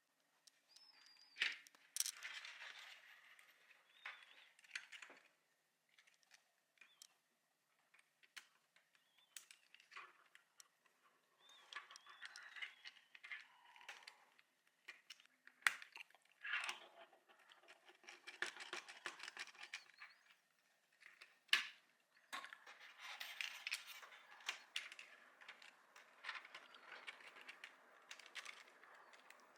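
Faint handling of small 3D-printed plastic model parts: scattered sharp clicks and taps between stretches of scraping and rustling.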